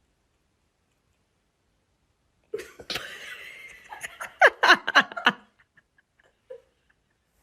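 A person laughing in a short burst of quick, loud 'ha' sounds, starting about two and a half seconds in and stopping abruptly about two seconds later.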